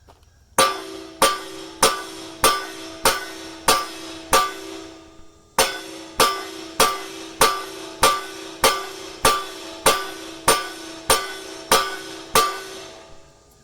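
A hammer striking steel on an excavator bucket's teeth while they are being changed, each blow ringing metallically. Steady blows about one every 0.6 s: seven, a short pause about five seconds in, then about a dozen more.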